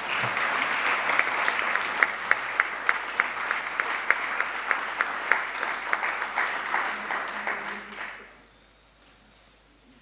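Audience applauding in a hall, with one nearby pair of hands clapping in a steady beat of about three claps a second over the crowd. The applause dies away about eight seconds in.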